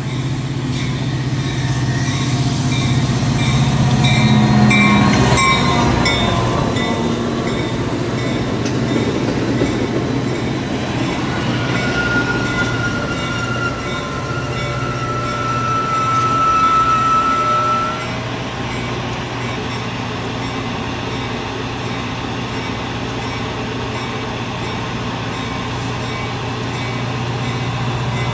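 Metra diesel commuter train passing close by: the locomotive goes by loudest about four to six seconds in, then the stainless-steel bilevel cars roll past with a steady rumble and a low hum. A high, drawn-out wheel squeal sounds from about twelve to eighteen seconds in.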